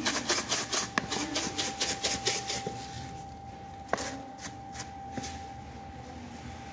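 Quick rhythmic tapping, about six strikes a second, for the first two and a half seconds, then a few single sharp knocks. A steady high-pitched machine hum runs underneath, typical of bakery equipment.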